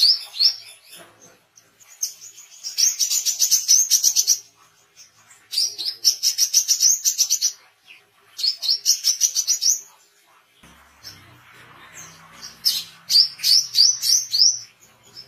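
Male brown-throated sunbird (wiceh) singing from a cage: repeated bursts of rapid, high chittering notes, each lasting about two seconds, with short pauses between. A faint low hum comes in during one pause about two-thirds of the way through.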